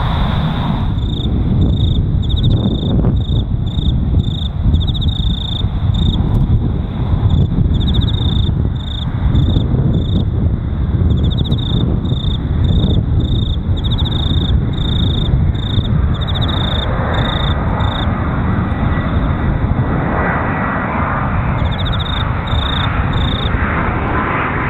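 Insects chirping in short, evenly repeated trills over a steady low rumble. From about two-thirds of the way in, the jet noise of an approaching Airbus A350-900 airliner on final approach builds, with a faint thin whine.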